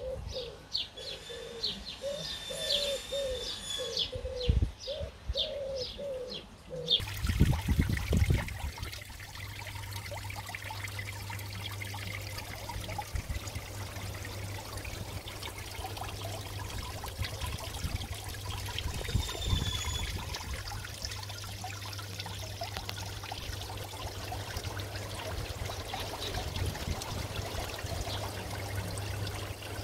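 A pigeon cooing in a repeated phrase, with a small bird chirping high above it. About a quarter of the way in, this gives way to a garden pond fountain splashing and trickling steadily over a constant low hum.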